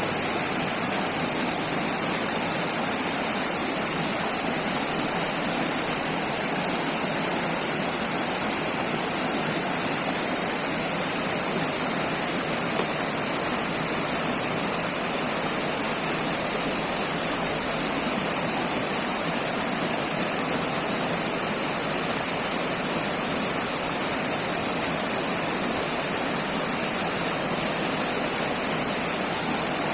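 River water rushing and splashing in a steady, unbroken flow.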